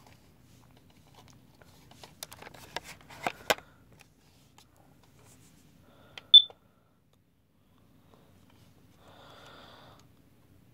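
A run of clicks and knocks from a detector being handled, then a single short, high-pitched beep from the smoke or carbon monoxide alarm about six seconds in.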